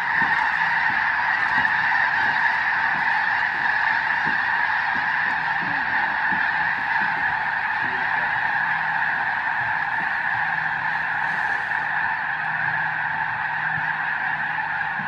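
A flock of thousands of snow geese calling all at once in flight: a dense, unbroken chorus of high honking that eases slightly near the end.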